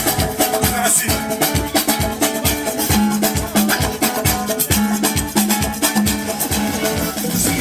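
Upbeat dance music with a fast, steady beat, played loud.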